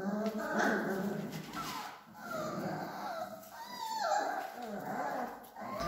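Three-week-old Alaskan malamute puppies whining and whimpering, several wavering high cries overlapping.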